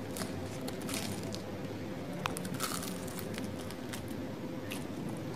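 Someone chewing a mouthful of crispy batter-fried dory fish: scattered faint crunches and crackles of the batter.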